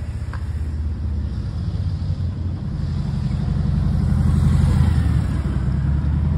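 Honda NC700X motorcycle's parallel-twin engine running with a steady low rumble, swelling louder past the middle and easing off near the end.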